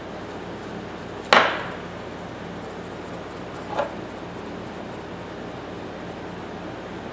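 A steel tap handle being rubbed with 0000 steel wool over steady background hiss, with a sharp metal knock about a second in and a lighter one a few seconds later as the handle is handled.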